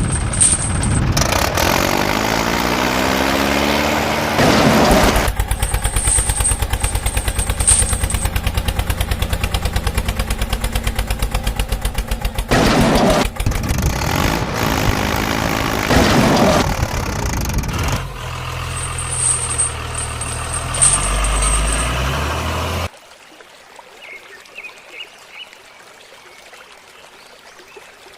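Heavy vehicle engines, truck and tractor, running and revving with a fast steady beat, a few rising and falling sweeps and hissing bursts, then cutting off suddenly about 23 seconds in to a quiet background with faint chirps.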